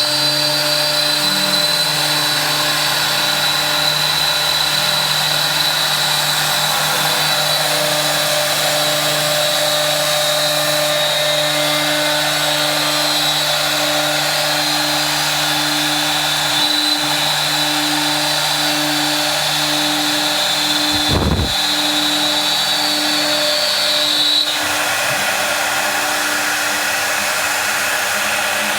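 A woodworking power tool running steadily, with a high whine that stops near the end.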